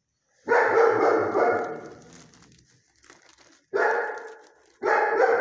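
A dog barks three times: one long bark about half a second in that fades out slowly, then two shorter barks near the end.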